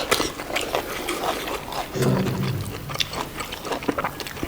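Close-up eating sounds of someone chewing buffalo innards: wet chewing and lip smacks with many short sharp clicks. A brief low hum comes about two seconds in.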